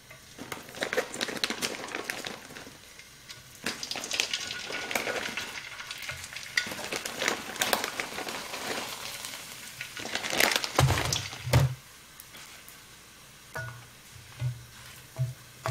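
Dried fish crackers frying in very hot oil, sizzling and crackling as they puff up. About ten seconds in there are two loud knocks of a utensil against the pan, then a few lighter taps.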